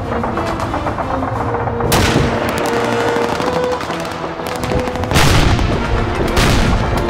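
Blank gunfire from a battle reenactment: rapid rifle and machine-gun shots, with two loud blasts about two and five seconds in, the second from an anti-tank gun firing a blank. Background music plays underneath.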